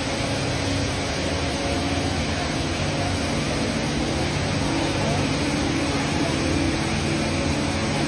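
Steady, unbroken noise of the Rain Vortex, the tall indoor waterfall, pouring down from the dome into its pool.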